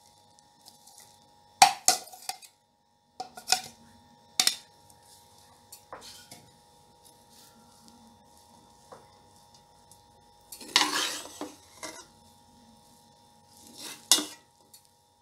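Metal spoon clanking and scraping against a large aluminium pot while boiled rice is mixed with fried vegetables and chicken. There are scattered clanks in the first few seconds, a longer scrape about eleven seconds in, and another clank near the end.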